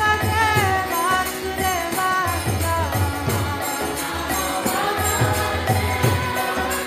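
Kirtan music: voices chanting a gliding mantra melody over a steady beat of low hand-drum strokes and jingling metal hand percussion.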